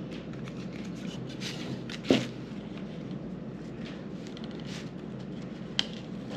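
Hands handling a small wooden craft frame strung with twine, with mini clothespins and paper cards: soft rustling, a loud click about two seconds in and a sharp tick near the end.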